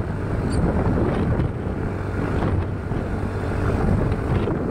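A motorcycle running steadily along a road, with wind rushing over the microphone mixed with the engine's steady low hum.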